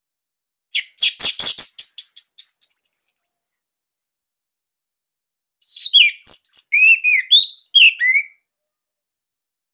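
Orange-headed thrush singing two phrases: first a fast run of repeated, fading notes lasting about two and a half seconds, then after a pause a varied phrase of high slurred whistles lasting about three seconds.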